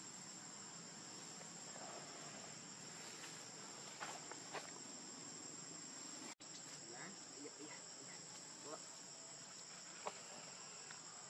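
Steady, high-pitched drone of insects in the forest, with a few faint clicks about four seconds in and again near the end, and a momentary dropout a little past halfway.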